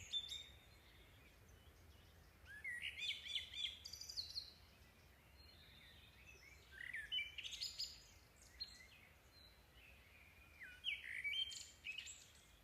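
Songbirds chirping in three short bursts of quick, high twittering calls a few seconds apart, faint, over a light hiss.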